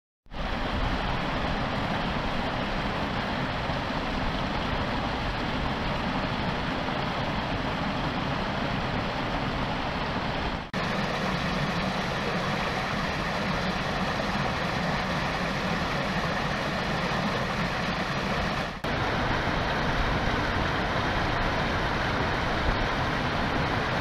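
Small stream of water spilling over rocks in a steady, even rush. It breaks off briefly twice, about eleven and nineteen seconds in, and comes back a little louder after the second break.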